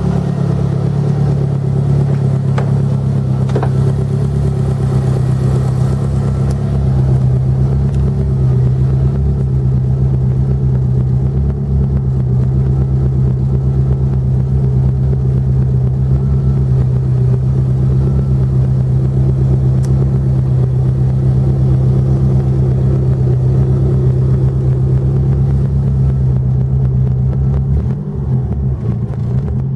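1989 Lancia Delta HF Integrale 16V's turbocharged DOHC 16-valve four-cylinder engine running steadily at idle, heard first from beside the car and then from inside the cabin. Its note dips and wavers briefly near the end.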